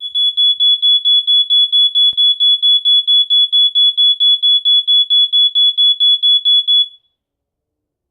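Battery-powered smoke detector alarm sounding a rapid, high-pitched pulsing beep, about four to five beeps a second, that cuts off suddenly about seven seconds in. Its test contacts are soldered shut, so it sounds whenever a relay driven by an ESP8266 NodeMCU board connects its 9-volt battery, not because of smoke.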